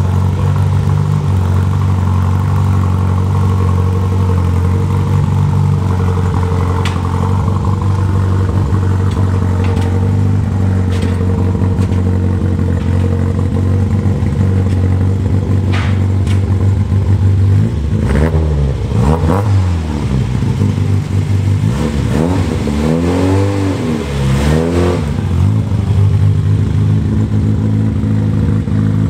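Toyota Starlet KP61's four-cylinder engine running through its newly fitted Spoon Sports muffler, the exhaust note steady and loud, with a handful of revs rising and falling in the second half.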